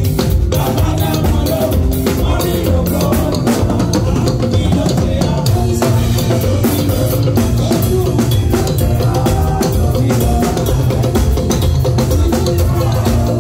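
Acoustic drum kit played live in a band: bass drum, snare and Zildjian cymbals struck in a steady groove, with sustained pitched instruments underneath.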